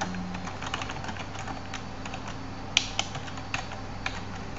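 Typing on a computer keyboard: an irregular run of key clicks, with a few harder keystrokes a little past the middle.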